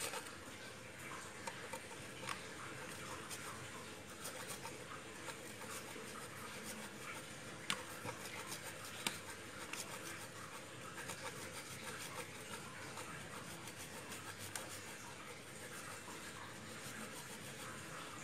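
Cheese being grated by hand on a flat stainless steel grater: faint, irregular scraping, with a few light clicks.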